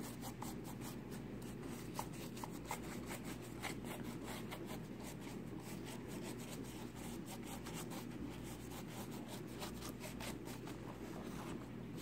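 Paintbrush stroking and dabbing milk paint onto a woven rattan pumpkin: a quiet, continuous run of short brush strokes, several a second.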